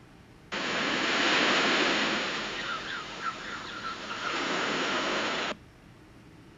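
AI-generated sound effect of surf-like rushing noise, like waves washing on a shore, with a few faint short chirps midway. It lasts about five seconds and cuts off abruptly.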